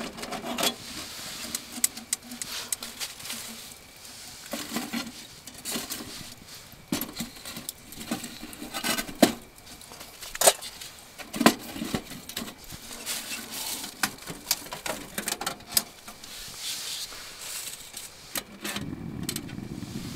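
Irregular clicks, knocks and rustling, like gear being handled, with a steady low rushing sound starting near the end.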